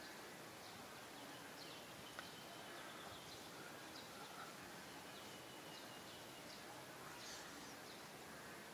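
Quiet outdoor ambience: a steady faint hiss with scattered faint high chirps and a few short thin whistles, and one light tick about two seconds in.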